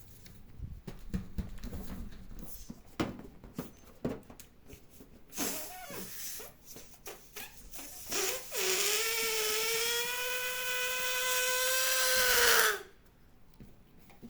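Rubber balloon handled with small squeaks and rubs, then air let out through its stretched neck in a loud, steady, high squeal with a hiss, lasting about four seconds and cutting off suddenly.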